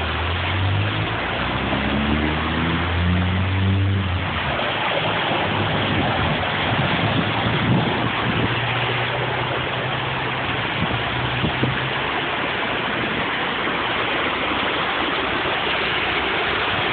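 Rushing floodwater, a steady loud wash, with a vehicle engine running over it for about the first four seconds, its pitch rising slightly before it fades out.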